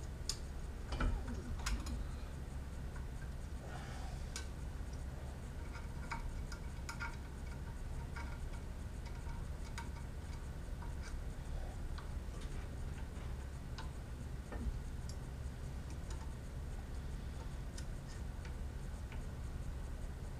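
Scattered small metallic clicks and taps: a T-handle hex key snugging screws and parts being handled on a CNC router kit's metal frame, the loudest few in the first two seconds. A steady low hum runs underneath.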